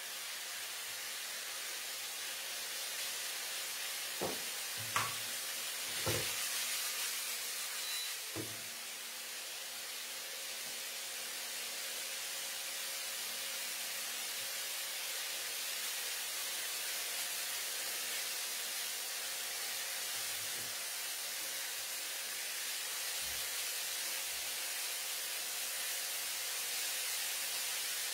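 Marinated chicken pieces sizzling in oil in a nonstick frying pan, a steady hiss. The spatula knocks against the pan a few times between about four and eight seconds in.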